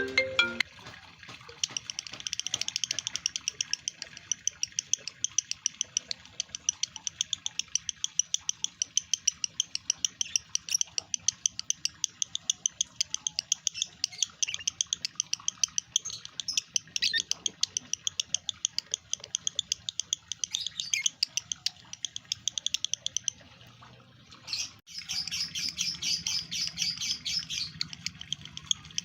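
Male lovebird in breeding condition chattering: a long, fast run of sharp, high chirps, several a second, breaking off briefly near the end and then starting again louder.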